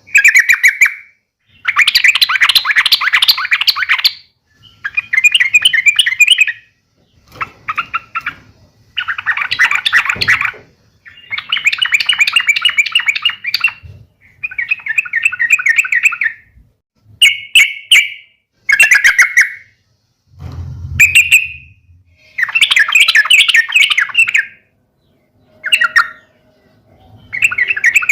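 Yellow-vented bulbul (trucukan) singing a run of short, rapid chattering phrases. There are a dozen or so, each one to two seconds long, with brief pauses between.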